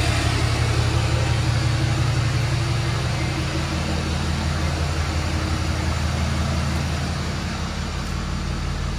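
2012 Ford F-250 Super Duty's 6.7-litre Power Stroke turbo-diesel V8 idling steadily.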